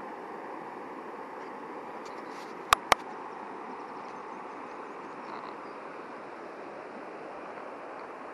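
Steady rushing of flowing water from a stream or river. Two sharp clicks come close together a little under three seconds in.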